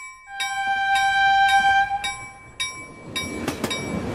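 A train horn sounds one long blast over a railroad crossing bell dinging about twice a second. Then the wheels of a passing train start clicking over the rail joints.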